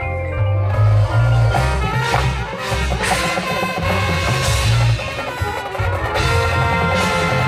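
Marching band playing loudly: brass with heavy low brass notes over drums.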